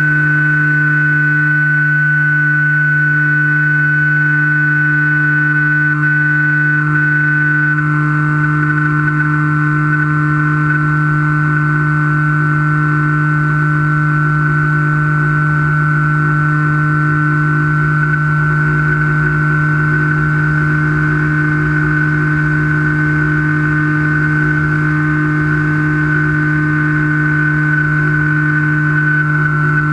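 Electric motor and propeller of a Skywalker foam FPV plane running steadily in flight, heard from its onboard camera: a steady drone with a high whine above it, holding an almost even pitch, over a low rush of wind.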